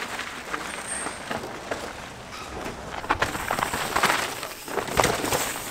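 Mountain bike tyres crunching and skidding over dry dirt and loose rock as a rider passes, loudest about four to five seconds in.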